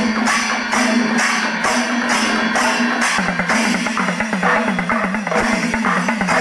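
Percussion music: drums and cymbals beating a steady rhythm of about two strokes a second over a held droning tone.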